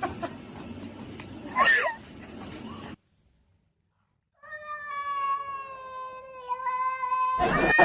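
Domestic cats meowing: a short meow about two seconds in, then after a moment of silence a long, drawn-out yowl lasting about three seconds, its pitch falling slightly.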